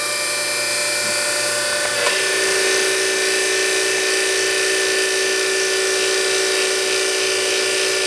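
Electric-hydraulic pump of a Kurt KH-60 hose crimper running steadily as the ram drives the dies closed on a hydraulic hose fitting; its note drops about two seconds in and then holds.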